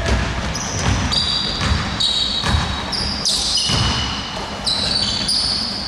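A basketball being dribbled on a hardwood court, a low bounce under a second apart, with repeated high squeaks of sneakers on the floor from about half a second in.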